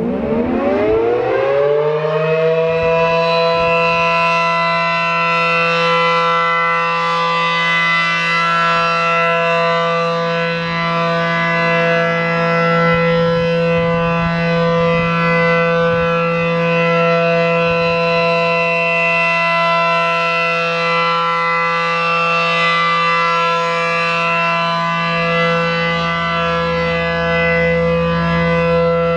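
Reverse-wired A.C.A. P-10 outdoor warning siren winding up over the first couple of seconds, then holding one steady tone: the alert signal, with no rise and fall.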